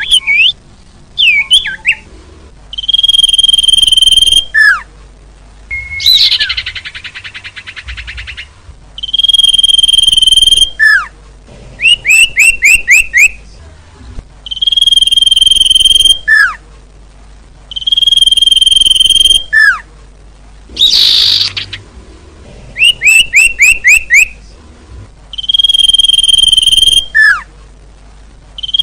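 Looped bird lure call for small songbirds. Long steady high whistles, each ending in a falling swoop, alternate with quick runs of four or five short falling chirps. A buzzy rattle comes about six seconds in and a harsh hiss about twenty-one seconds in.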